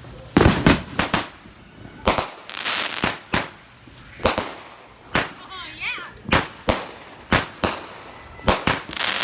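Brothers Fireworks consumer firework cake firing shot after shot: about fifteen sharp bangs at uneven intervals, some followed by a second or so of hiss.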